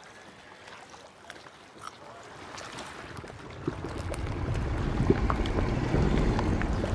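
Quiet outdoor ambience with a few faint clicks, then a low rumbling swell that builds steadily louder from about halfway in.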